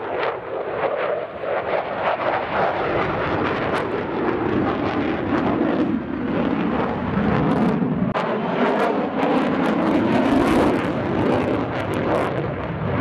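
Lockheed Martin F-35A's Pratt & Whitney F135 afterburning turbofan running loud and steady during a display manoeuvre, a continuous jet roar shot through with crackle, swelling a little in the second half.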